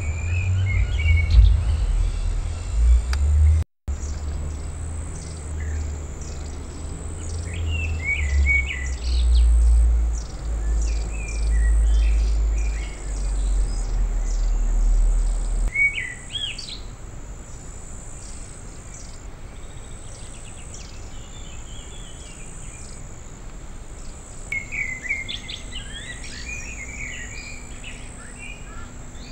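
Wild birds chirping and calling on and off, with insect chirps, over a strong low rumble that stops about halfway through.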